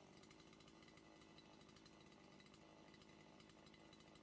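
A Stihl carving chainsaw running steadily, very faint and close to silence.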